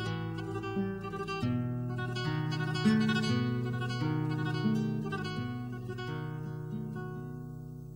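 Acoustic guitar music: strummed and plucked chords that change about once a second and fade away toward the end.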